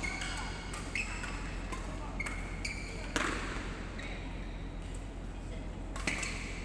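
Badminton rackets striking shuttlecocks in ongoing rallies: a run of sharp hits at uneven intervals, the loudest about three seconds in.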